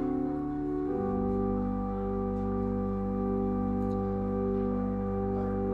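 Church organ playing slow sustained chords. The chord changes about a second in and is then held steadily.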